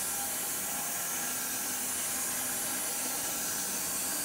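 Homemade electric bandsaw mill running steadily, its blade sawing through an elm log with an even hiss and a faint motor hum. The blade has already cut a whole ash log and still cuts fine.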